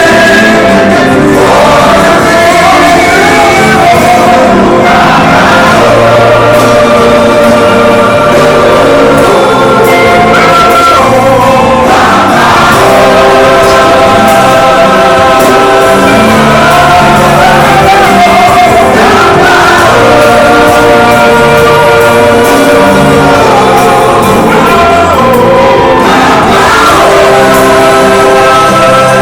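Church choir singing gospel music, loud and continuous, with held notes that change every few seconds.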